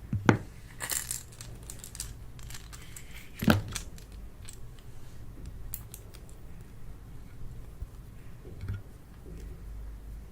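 Two sharp knocks, about three seconds apart, with small clicks and crinkling between them: small objects being handled and set down.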